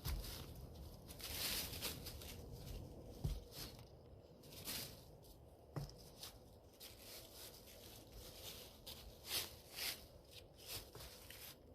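Irregular rustling and crunching of dry leaves, sticks and brush, in short uneven bursts, as someone moves about and handles material in the woods.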